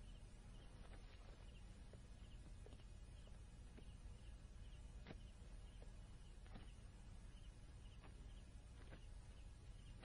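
Near silence: a faint low hum with soft, regular insect chirping, about three chirps a second, and a few faint clicks.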